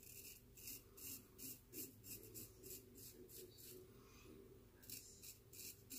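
Short, quiet razor strokes scraping through shaving lather, about three a second, with a pause of about a second in the middle.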